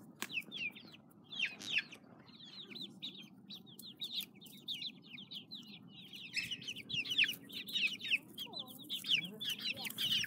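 A flock of young chicks peeping continuously, with many short, high, downward-falling cheeps overlapping. The calls grow busier and louder about halfway through.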